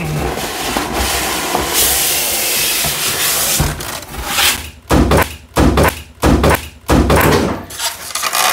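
Packaging being handled: a steady rustle of cardboard and plastic, then about five loud squeaky rubbing bursts, roughly half a second apart, as a styrofoam insert is pried open around the controller.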